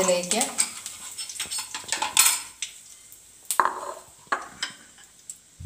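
A metal spoon clinking and scraping against an aluminium kadai: irregular knocks and scrapes, some with a short metallic ring, the loudest about two seconds in, thinning out near the end.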